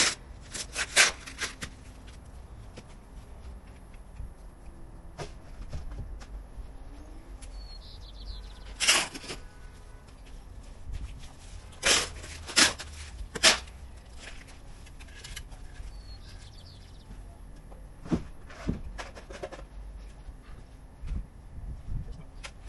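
Sharp knocks and clacks at irregular intervals, typical of hand work with tools and lumber, with three loud strikes in quick succession about halfway through. Faint short bird chirps come and go in the background.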